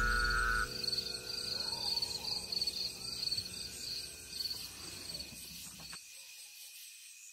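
A held music note ends under a second in, leaving crickets chirping in a steady pulsing rhythm over a faint outdoor ambience. The sound fades down, and its low end drops out about six seconds in.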